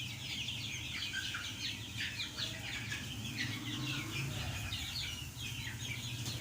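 A flock of chickens in a poultry shed, many birds cheeping and clucking at once in a dense, overlapping chatter, over a steady low hum.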